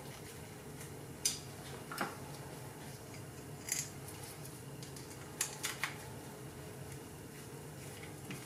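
A handful of small, sharp metal clicks and taps as screws are picked up and turned into a finned metal heat sink with a small screwdriver, over a faint steady hum.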